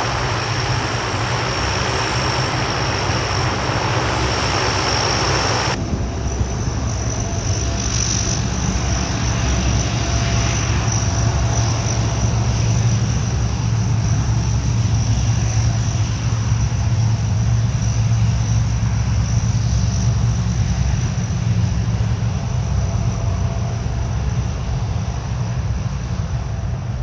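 Lockheed C-130 Hercules' four turboprop engines running: a steady low drone with a high whine over it. About six seconds in the sound turns abruptly duller as the hiss falls away, while the drone carries on.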